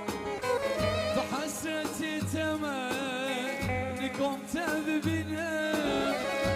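Kurdish wedding dance music played on an org (electronic keyboard) with zurna and buzuq: an ornamented, wavering melody over a held drone and a steady repeating beat.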